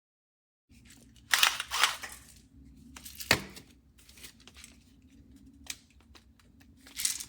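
Electric salt and pepper grinder grinding in short bursts, a gritty crunching, with a sharp click about three seconds in and another pair of bursts near the end.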